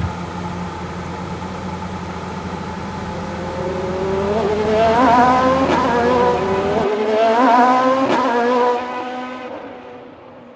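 Dubbed-in car engine sound effect: the engine revs with its pitch climbing in two runs, the first starting about three seconds in and the second about seven seconds in, then it fades out.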